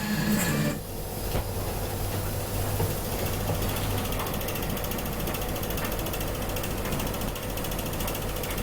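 A small mechanism running with rapid, even clicking, like a ratchet or gear train.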